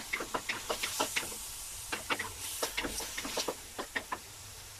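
Wooden spatula scraping and knocking against a metal wok while stir-frying squid rings: a quick run of strokes, a short pause about a second in, then another run, over a faint sizzle of oil.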